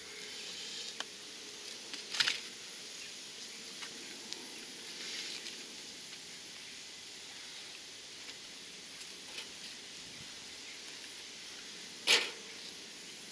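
Coleman Dual Fuel camp stove burner hissing steadily under a frying pan of heating oil, with a few light ticks and two short clattering knocks, one about two seconds in and a louder one near the end.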